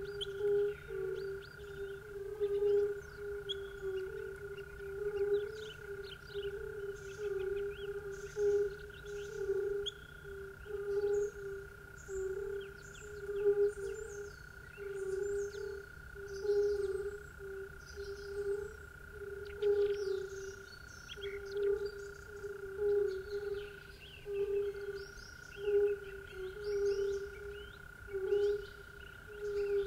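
Evening nature ambience: a chorus of frogs croaking in a slow, steady pulse over a constant high drone, with scattered bird chirps.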